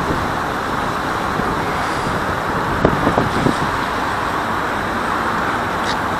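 Steady rushing noise of distant road traffic, with a few faint brief sounds about three seconds in.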